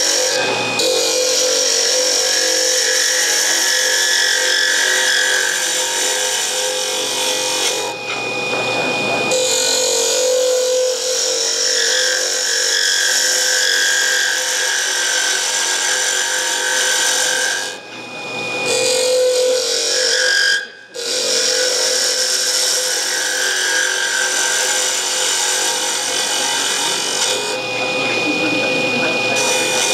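Wood lathe running while a hand-held turning tool cuts a spinning closed-end pen blank: a steady rough shaving noise over a constant high whine. The noise breaks off briefly about 8, 18 and 21 seconds in, as the tool leaves the wood.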